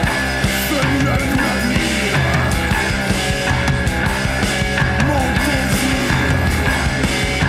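Noise-pop band playing loud, dense, distorted rock music, with sustained low bass notes under gliding, fuzzy upper lines.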